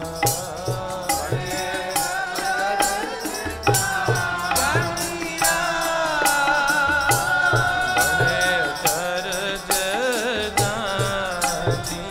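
Sikh kirtan: devotional singing over held harmonium notes, with tabla keeping a steady, even beat.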